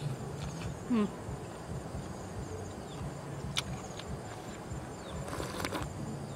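Insects buzzing and chirping steadily, with a few short sharp mouth clicks and slurps from someone eating out of a bowl.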